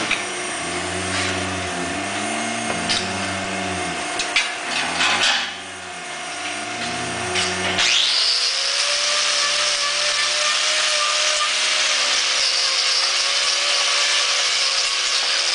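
Handheld grinder with a hoof-trimming disc grinding a cow's hoof. For the first half its pitch dips and recovers about once a second as it bites into the hoof; about eight seconds in it settles into a steady high whine.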